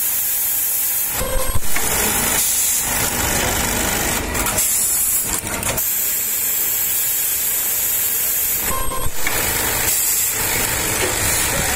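JACK JK-T1906GPA automatic elastic-joining sewing machine running its cycle: a steady hiss of compressed air, broken a few times by short bursts of mechanical clatter as its pneumatic cylinders move.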